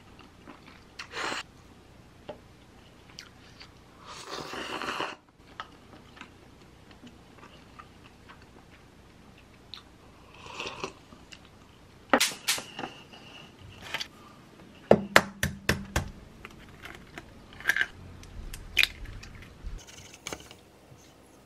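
Eating cup noodles: slurping and chewing, with soft noisy slurps early on and sharp clicks and taps of wooden chopsticks against the paper cup in the second half.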